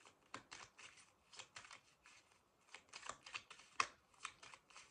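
A deck of tarot cards being shuffled by hand: an irregular run of short, crisp card flicks and taps.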